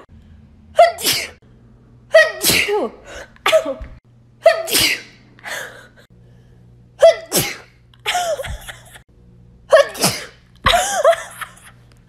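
A young woman in a sneezing fit, sneezing over and over: about eight loud, voiced sneezes, one every second or two.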